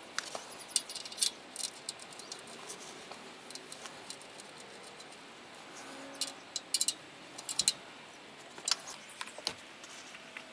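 Sump plug being refitted to the oil pan and tightened with a socket wrench: irregular metallic clicks and taps, with a dense run of sharp clicks about six to eight seconds in.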